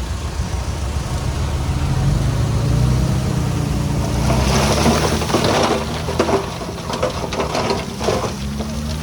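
Heavy-equipment diesel engine running steadily, joined from about four and a half seconds in by irregular clattering and crunching of stones being pushed or tipped.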